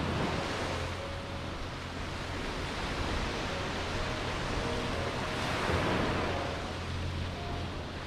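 Sea waves washing onto a sandy beach: a steady rush of surf that swells once near the start and again a little past halfway.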